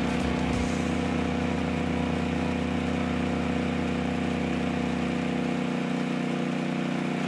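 Homemade circular-blade sawmill running steadily under engine power, a constant droning hum.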